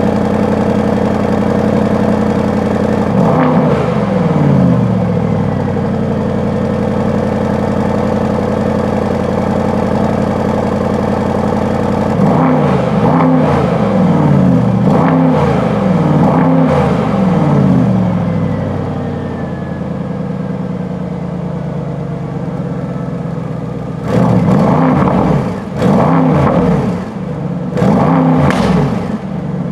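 Mercedes-AMG S63 E-Performance's 4.0-litre twin-turbo V8 idling and being revved at standstill: one blip about three seconds in, a run of about five quick blips in the middle, and three sharp revs near the end, each falling back to idle.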